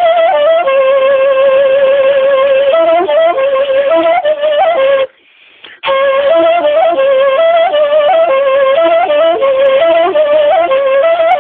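A kaval (end-blown shepherd's flute) playing a slow uzun hava melody: a single line of long held notes with quick ornamental turns. There is a brief pause about five seconds in.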